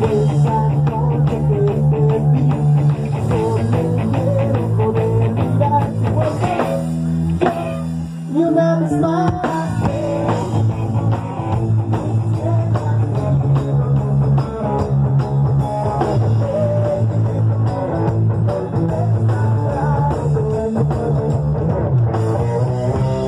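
Loud rock and roll dance music with electric guitar, bass and drums. The bass line drops out briefly about seven or eight seconds in.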